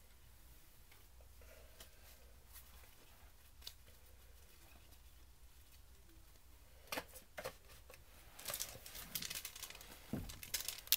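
A 1991 Upper Deck basketball foil pack being picked up and torn open. It is quiet for the first several seconds, then a few sharp crackles come about seven seconds in, followed by dense crinkling and tearing of the foil.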